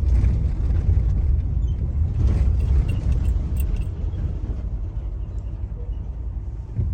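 Steady low rumble of a car driving along the road, heard from inside the cabin, easing a little quieter in the second half.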